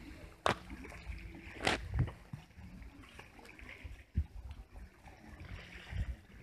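River water lapping against a concrete seawall, with two sharp clicks in the first two seconds and a few dull low thumps.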